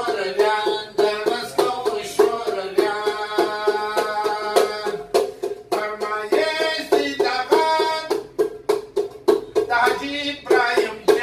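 A plucked string instrument playing a fast run of ringing notes in quick strokes over a steady repeated drone note.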